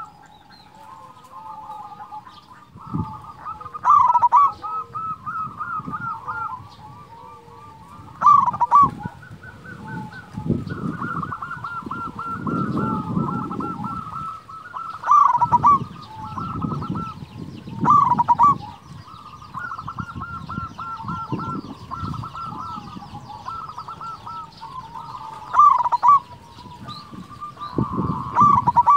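Zebra dove (perkutut) cooing: a rolling, staccato song near 1 kHz goes on throughout, with a louder phrase standing out six times, every few seconds. A low rumble sits underneath around the middle.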